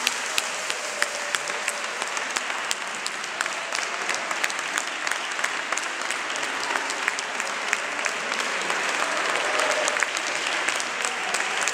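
A congregation applauding: many hands clapping steadily, with sharper single claps standing out.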